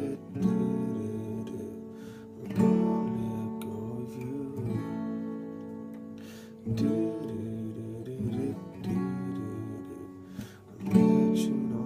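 Acoustic guitar playing the chorus with one strum per chord, about one every two seconds. Each chord rings out and fades before the next.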